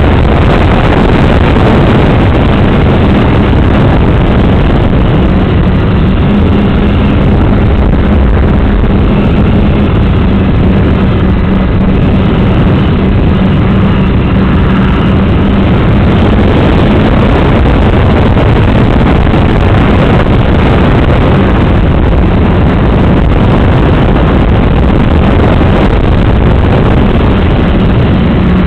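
Loud, continuous motor and propeller noise of a radio-controlled FPV model aircraft in flight, heard from the onboard camera, with a steady hum and air rushing over the microphone.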